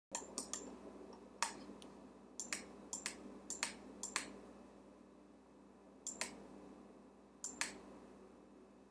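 Computer mouse clicks, many in quick press-and-release pairs, coming in a burst through the first four seconds and again twice later. A faint steady hum runs underneath.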